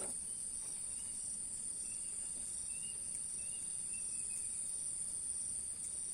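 Steady high-pitched drone of insects such as crickets, unbroken throughout, with a few faint short chirps in the middle.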